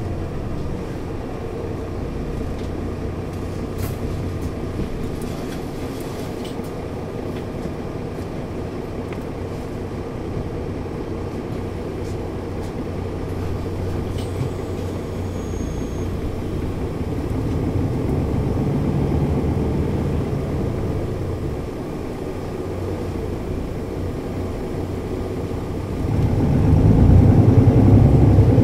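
Mercedes-Benz O 530 Citaro city bus engine running at a low, steady pace. It grows louder about two-thirds of the way in and rises sharply near the end as the bus pulls away harder.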